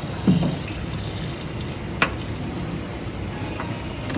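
Tap water running steadily into a stainless steel sink, with a sharp knock as a knife cuts through a carrot onto the cutting board about two seconds in and again near the end. A brief low sound comes just after the start.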